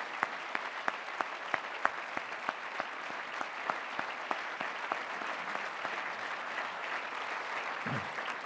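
Audience applauding steadily, with one person's sharp claps close to the microphone, about three a second, that grow fainter and die out after about five seconds.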